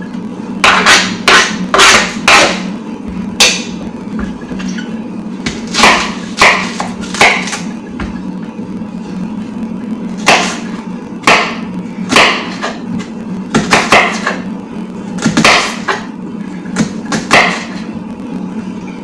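Kitchen knife knocking on a cutting board while onions are chopped: about twenty irregular knocks, often in pairs or short runs with pauses between. A steady low hum runs underneath.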